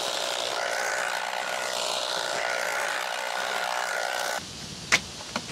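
A small motor running with a steady whine, which cuts off suddenly near the end, leaving quieter ambience with two sharp clicks.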